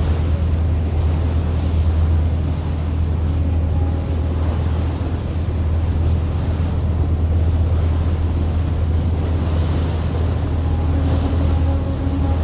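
A boat's engine drones steadily and low, with water noise from the passage and wind buffeting the microphone.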